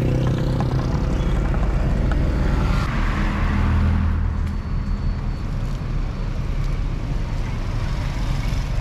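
Street traffic: a steady low engine rumble, with a vehicle passing from about three to four and a half seconds in.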